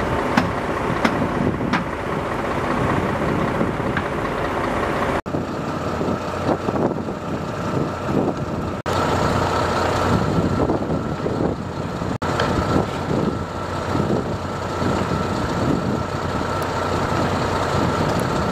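Diesel engine of a fire brigade crane truck running steadily, with a steady high whine over it in the second half.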